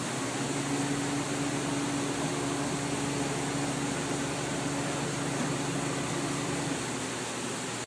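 1996 Haas VF0 CNC vertical machining center running its Z-axis at 50% rapid: a steady mechanical whir with a low hum from the axis drive that comes in about half a second in and a higher hum that fades out near the end.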